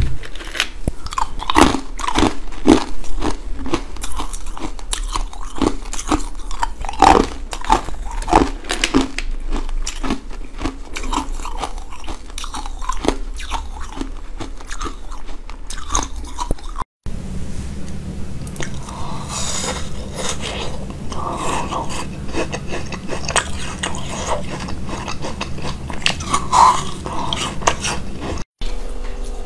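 Close-miked crunching and chewing of coloured ice cubes, with many sharp, irregular bites. After a cut about 17 s in, softer biting and chewing over a steady low hum.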